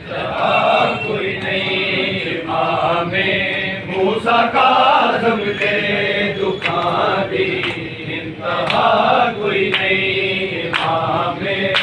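Men's voices chanting a noha, a Shia mourning lament, in phrases. Sharp slaps, typical of matam (hands beating on bare chests), come through at irregular intervals.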